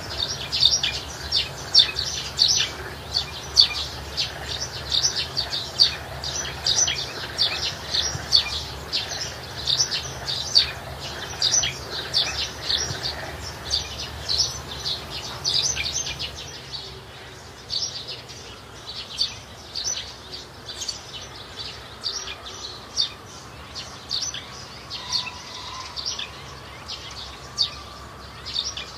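Birds chirping: a fast, steady stream of short high chirps that thins out after about halfway, with a faint whistled note toward the end.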